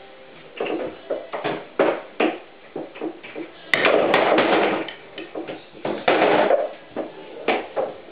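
Pool balls on a home billiard table: a run of knocks and clicks, then a sharp cue strike and ball-on-ball click about four seconds in, followed by balls rolling and clattering into the pockets and through the table's ball return.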